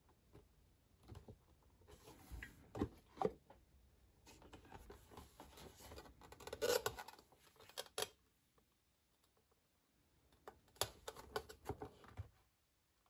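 Cardboard liquor gift box being handled and turned over in the hands: scrapes, rubs and light taps of fingers on the glossy board, in three short spells with quiet between.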